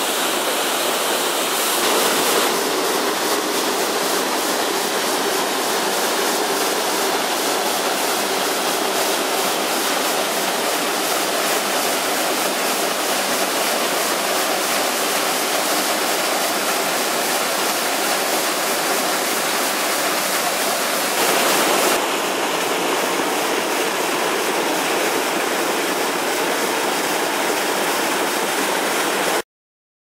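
Mountain waterfall pouring over rock: a steady, even rush of falling water. Its tone shifts slightly about 2 seconds in and again about 22 seconds in, and it stops abruptly near the end.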